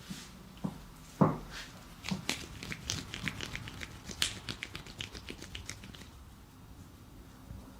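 Hands striking and tapping on a person's head and back during a massage: one heavier thump about a second in, then a quick run of light, sharp taps for about four seconds that stops well before the end.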